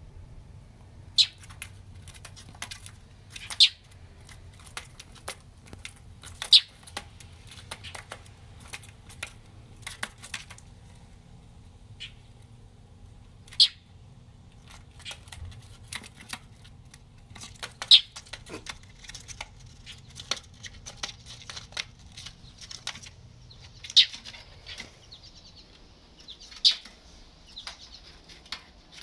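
Mockingbird chick giving short, sharp high chips every few seconds, with faint scratching and fluttering of its claws and wings against vinyl house siding between them.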